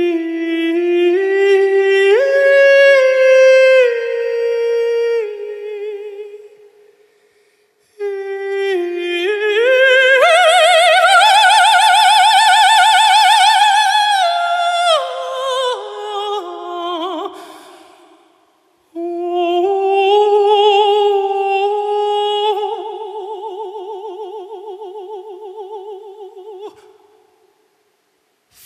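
A countertenor singing three long, slow phrases with wide vibrato and brief silences between them. The middle phrase climbs to a loud, high held note.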